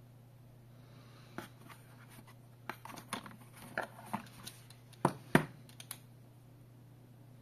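Bone conduction headphones being pulled out of a cardboard box insert by hand: scraping and rustling against the card, with a scatter of short knocks and clicks. The two loudest knocks come a little after five seconds. A steady low hum runs underneath.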